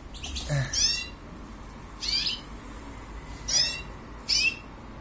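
Small cage birds chirping: four short, high calls about a second apart, each a quick run of falling notes.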